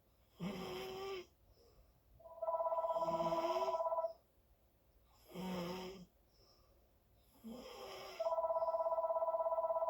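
Loud snoring in short pitched breaths of under a second each, four in all. Twice, a two-note warbling ring like a telephone's sounds for about two seconds, louder than the snores.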